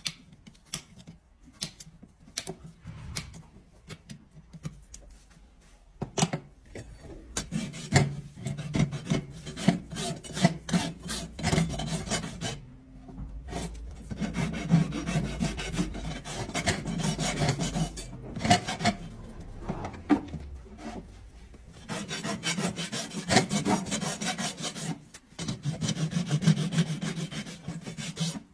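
Farrier's rasp filing a draft horse's hoof in runs of quick back-and-forth strokes, with short pauses between runs. The first several seconds hold only scattered sharp clicks before the rasping begins.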